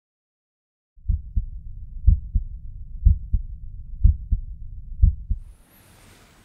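Recorded heart sounds through a stethoscope: a lub-dub pair of heart sounds about once a second, with a murmur filling the gaps between the beats. The sound starts about a second in and stops after five beats.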